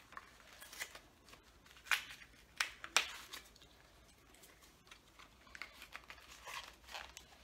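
Hands tearing open a small cardboard cosmetics box and handling its paper packaging: scattered crinkles and sharp crackles, with a few louder snaps in the first three seconds.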